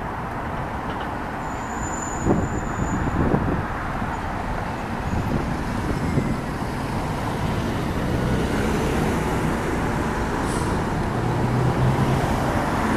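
Steady hum of city road traffic, a low even noise, with a couple of short knocks a few seconds in and a brief thin high-pitched tone just before them.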